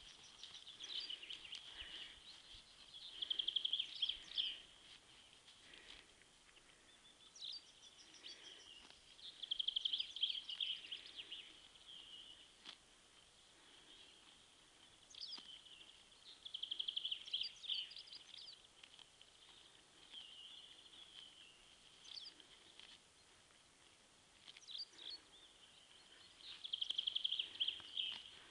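A songbird singing outdoors: a phrase of a few seconds, quick high notes running into a fast trill, repeated about five times with pauses of a few seconds between.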